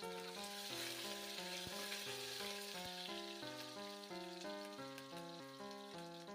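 Onions sizzling as they fry in hot oil with mustard and cumin seeds in an aluminium pressure cooker, with a steel spoon stirring and tapping the pot a few times. Instrumental background music plays a stepping melody throughout.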